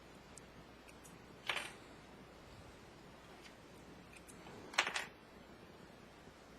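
A few brief clicks and rustles of fabric and the sewing machine being handled: one about a second and a half in, then a quick double click near five seconds.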